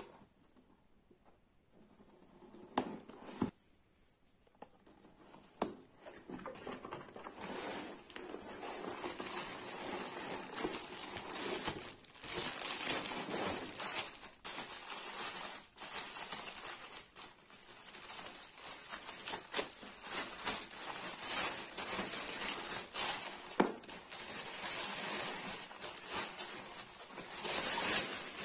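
A few scattered taps and knocks in the first few seconds, then continuous crinkling and rustling of clear plastic wrapping as it is handled and pulled open.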